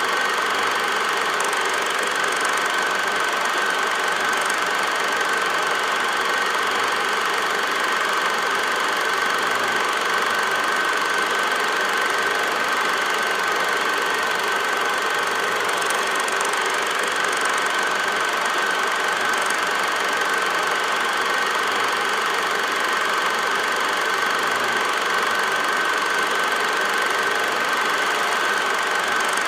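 8mm film projector running: a steady mechanical whir with a constant high whine, unchanging throughout.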